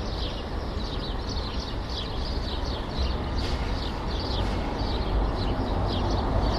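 City street ambience: a steady low rumble of traffic with small birds chirping over it in many short, quick, high chirps. The traffic grows a little louder near the end.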